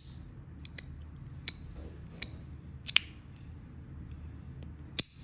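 Handheld fidget toy clicking sharply as it is worked by hand: several irregular clicks, with the loudest pair about three seconds in. The mechanism is stiff and hard to push.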